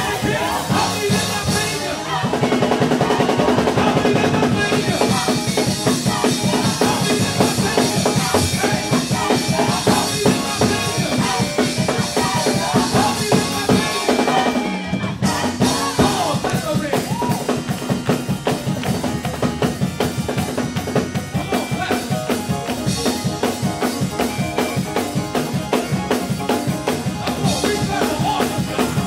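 Live gospel band and vocal group performing: a drum kit keeps a steady beat under keyboard while the singers sing, getting louder about two seconds in.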